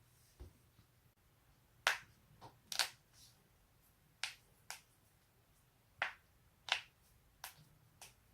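A person's joints cracking: a series of about ten sharp pops, often in quick pairs, the loudest near two and three seconds in.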